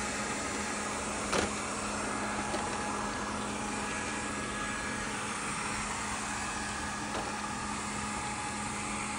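Yonnder R1 robot vacuum running: a steady, quiet whir of its suction fan and side brushes with a constant low hum, and a single click about a second and a half in.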